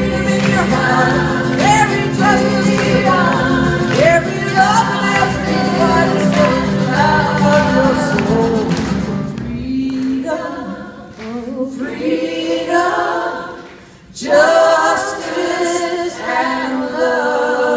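A chorus of women's voices singing together, backed by acoustic and electric guitars. About halfway through, the instruments fall away and the voices carry on almost unaccompanied. They break off briefly near the end, then come back in strongly.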